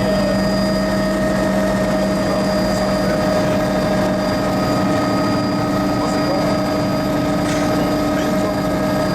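Helicopter cabin noise: the engine and rotors drone steadily, with a constant high-pitched transmission whine.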